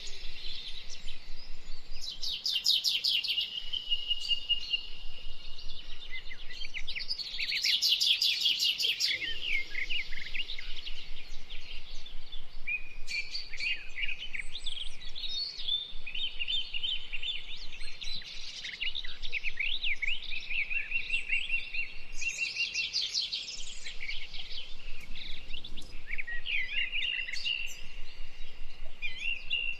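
Dense chorus of many birds chirping and singing, with fast repeated-note trills and short sliding whistles overlapping without a break.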